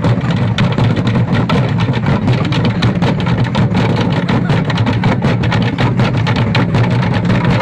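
Loud, fast drumming and percussion accompanying the dance, with rapid strikes over a heavy, distorted low rumble.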